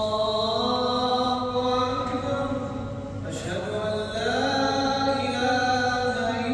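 A man's voice chanting in Islamic style at the mosque, holding long, slowly gliding notes in two phrases with a brief break about three seconds in.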